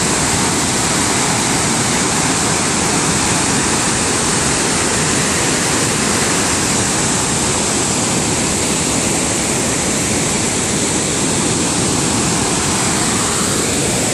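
Large waterfall in heavy flow: a steady, loud rush of falling water.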